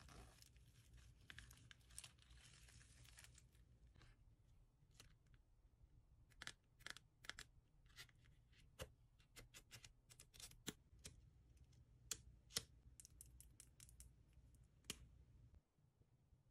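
Quiet handling of a miniature toy backpack and its tiny accessories. First comes a soft rustle of its sequins for the first three seconds or so, then a run of sharp little taps and clicks from long fingernails on a miniature notebook and notepad, stopping a second or so before the end.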